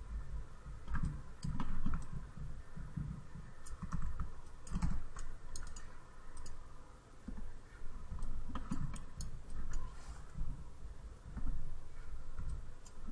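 Scattered, irregular clicks of a computer keyboard and mouse, with soft low thumps between them.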